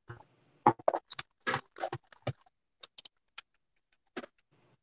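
Small RC shock parts (metal shock shafts, pistons, screws) being handled on a workbench: an irregular run of sharp clicks and light taps, about a dozen, as parts are picked up, set down and fitted together.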